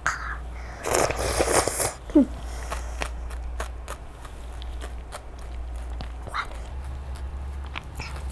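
Close-miked eating: small wet clicks and smacks of chewing, with a louder noisy burst of eating sound lasting about a second near the start, over a steady low hum.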